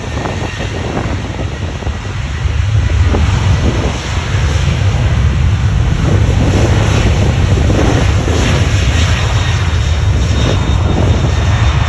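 Boeing 737 MAX's CFM LEAP-1B turbofan engines at takeoff power: a heavy, steady rumble with a broad rushing hiss that grows louder about two and a half seconds in. Wind buffets the microphone.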